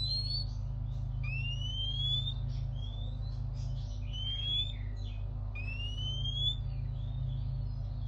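Oriental magpie-robin singing a series of clear, rising whistles, each up to about a second long, every second or two, over a steady low hum.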